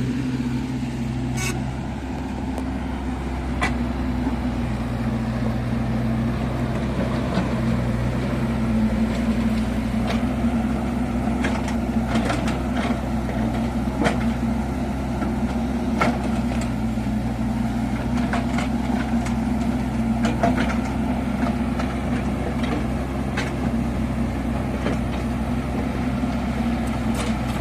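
Kubota U50 mini excavator's diesel engine running steadily under load, with scattered sharp metallic clanks from the machine at work.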